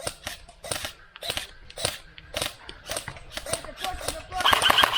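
Airsoft gunfire: a string of sharp shots, about three a second and unevenly spaced. A voice starts calling out near the end.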